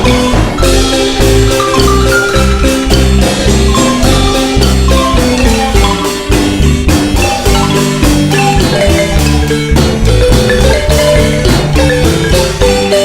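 Marimba music: quick runs of struck wooden-bar notes over a steady bass line, a lively dance tune.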